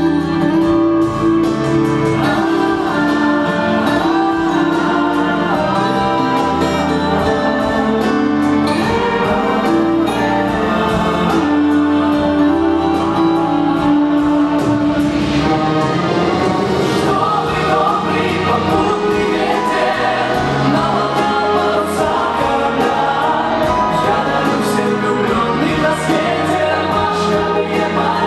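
Music: a song with choir-like voices held over instrumental accompaniment.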